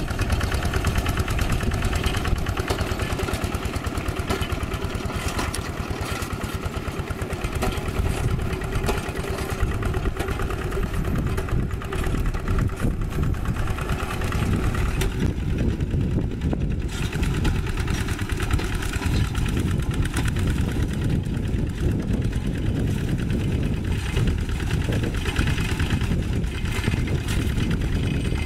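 Single-cylinder diesel engine of a two-wheel walk-behind hand tractor running steadily under load as it drives cage wheels and a levelling board through paddy mud.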